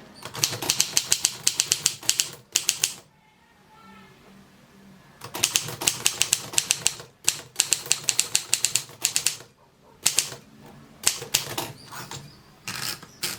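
Triumph Durabel portable typewriter being typed on: quick runs of sharp keystroke clacks, several a second, in four bursts with short pauses between them.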